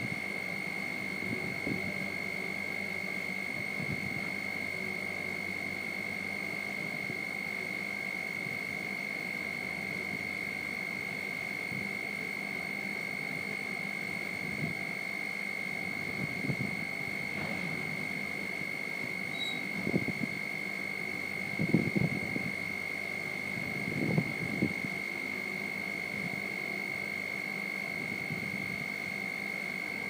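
Steady high-pitched buzzer from a gantry crane's wind-speed alarm, sounding because the wind is above 21 m/s. Now and then low rumbles of storm gusts buffet the cab, strongest a little past the middle.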